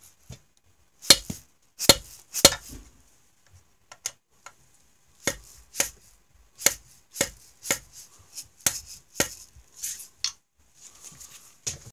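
Dead-blow hammer tapping the end of a screwdriver seated in a stuck brass stator screw, about a dozen sharp taps in two runs, to shock the screw loose.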